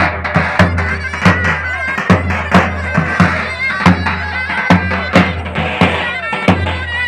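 Turkish folk dance music: a reedy, wavering wind melody over a steady low drone and a regular drum beat.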